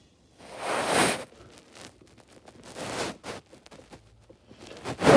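Gear-lever boot being slid over the gear shifter: a few brief rustling, scraping bursts of the boot material rubbing, the first and loudest about a second in.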